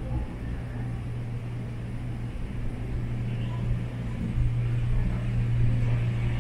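Gondola cable car cabin travelling along its cable into the station, heard from inside the cabin: a steady low hum and rumble that slowly grows louder toward the end.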